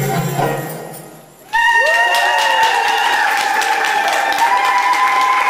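Belly dance music fades out. About a second and a half in, the audience suddenly bursts into clapping and high, held cheering voices.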